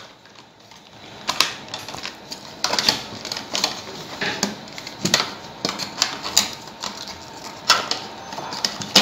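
Irregular plastic clicks and knocks as a plastic circuit-breaker box is handled and pressed down onto a board while wires are pushed through it, about a dozen sharp taps spread unevenly.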